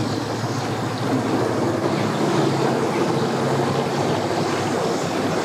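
Engine of a tow vehicle running steadily at low speed as it pulls a boat trailer past.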